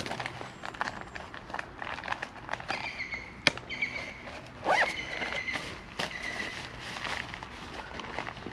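Scattered sharp clicks and crackles with rustling, from a wood fire burning in a log stove and gear being handled in a backpack. A louder click comes about three and a half seconds in, and two short high whistling tones are heard, one around three seconds and one around five seconds in.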